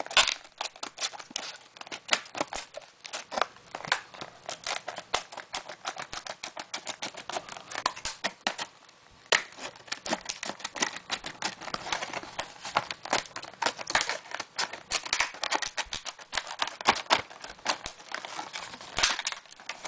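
Packaging being cut open with nippers and handled: a dense run of irregular snips, clicks and crinkling, easing off briefly about halfway through.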